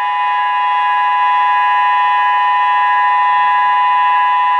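Tsunami early-warning siren sounding one loud, steady tone that holds its pitch without rising or falling, during a test of the warning system.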